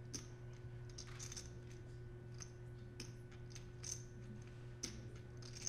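Poker chips clicking against one another as they are handled at the table: scattered sharp clicks, a few bunched together about a second in, over a low steady room hum.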